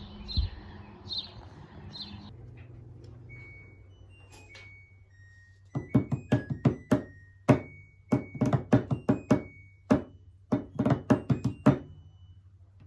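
Clothes dryer running with a low hum. From about six seconds in, it gives an irregular run of sharp clinks, each ringing briefly at its own pitch, which sound musical. A single thunk comes just before.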